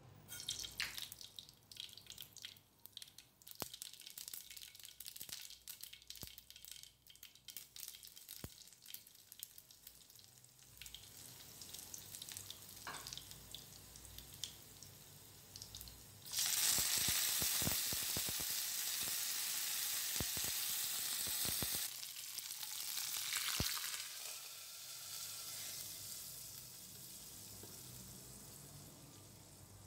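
Mustard seeds spluttering in hot oil in a small pan for a tempering, with a scatter of sharp pops and crackles. About halfway through, a much louder steady sizzle starts as the tempering fries hard, lasting about five seconds before dying down.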